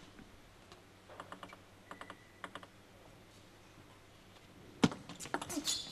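Table tennis ball clicking: a few faint taps, then a sharper hit near the end followed by a quick run of clicks as the ball is served and played over the table.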